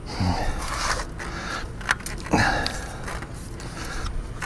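Scattered clicks, knocks and scrapes of a Swagman e-Spec hitch-mounted bike rack being handled, as its frame-hold arm is adjusted onto an electric bike's frame.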